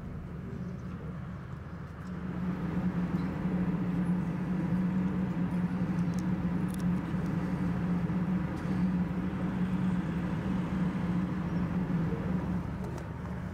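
Steady low engine hum, swelling about two seconds in, holding, then easing off near the end.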